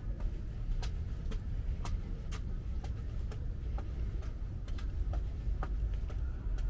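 Sharp clicks at an uneven pace, about two a second, over a steady low rumble.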